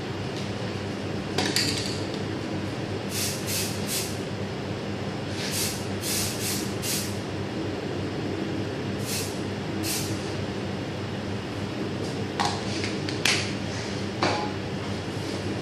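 Short hissing spray bursts in quick runs of two to four, over a steady electrical hum of kitchen machinery. A few sharp clicks, the loudest about thirteen seconds in.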